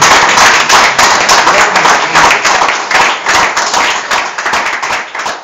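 Audience applauding: many hands clapping at once, loud at first and thinning out toward the end.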